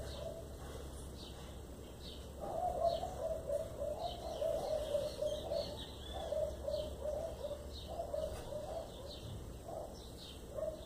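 A dove cooing in a long series of low notes from about two seconds in until near the end, over thin high bird chirps repeating about twice a second.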